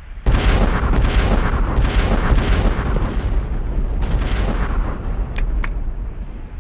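Battle din of cannon and musket fire. A sudden heavy boom opens it, and a steady rumble of explosions and shots follows. A couple of separate sharp cracks come near the end.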